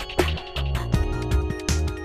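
Background music with a steady beat: heavy bass pulses and sharp percussion hits over sustained tones.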